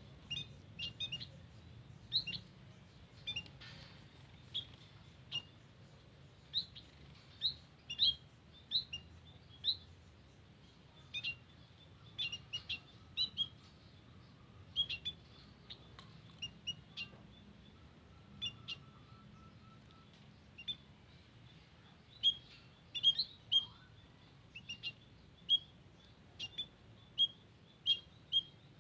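White-headed munias (emprit kaji) calling: short, high chirps, singly and in quick pairs, at irregular intervals, over a faint low hum.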